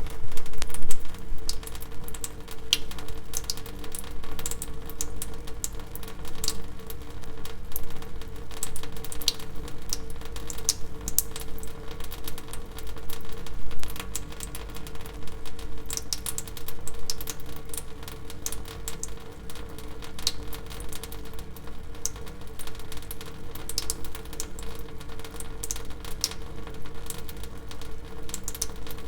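Water dripping, many irregular drops ticking one after another, over a steady low hum.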